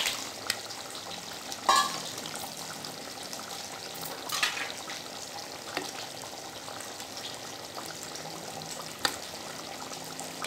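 Tamarind fish curry bubbling at the boil in a clay pot while a steel ladle stirs it. The ladle knocks against the pot about five times, loudest just under two seconds in.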